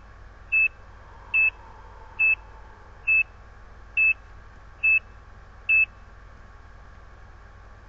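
ECG monitor's heartbeat beep: seven short, high beeps at one pitch, a little under a second apart, one for each detected heartbeat, stopping about six seconds in.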